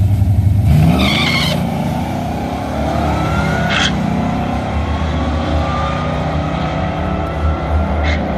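Two drag-racing vehicles rumble at the starting line, then launch about a second in, their V8 engines revving up hard. One is a supercharged Ford SVT Lightning pickup, the other a muscle car. Their sound carries on and fades as they run away down the strip, with a rising whine and a couple of sharp cracks along the way.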